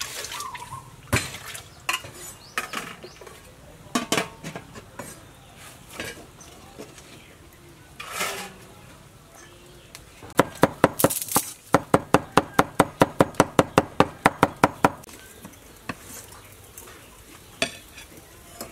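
Scattered clinks and knocks of a bowl and lid against a metal pot, then, about ten seconds in, a cleaver chopping fast and evenly on a cutting board, about six strokes a second for some five seconds, mincing food.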